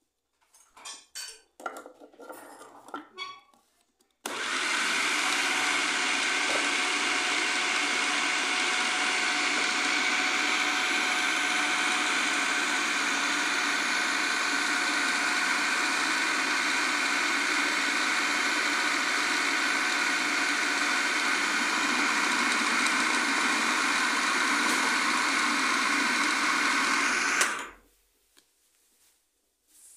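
Food processor motor running steadily, chopping fresh mint into a bulgur-wheat and ground-meat kibe mix. It starts abruptly about four seconds in after a few knocks and clicks, and cuts off near the end.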